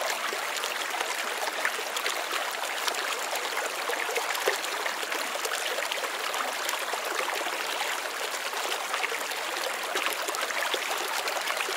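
Steady rush of running water, even throughout with fine crackling in it.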